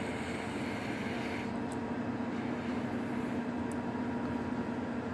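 Steady mechanical hum with a broad hiss, unchanging in level.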